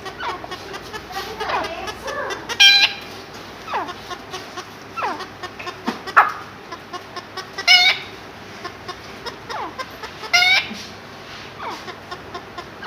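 Chicken-style clucking: a run of short, falling clucks about once a second, broken by three louder, harsher squawks spread well apart.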